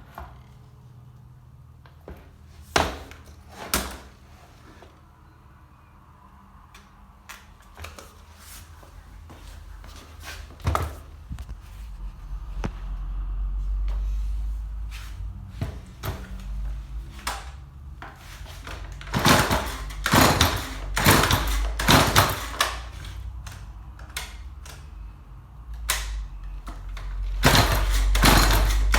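Stihl chainsaw being pull-started over and over without catching. The starter cord gives short rasping pulls in quick clusters, with scattered knocks and clunks and a low rumble underneath, and the engine never runs: a saw that will not start.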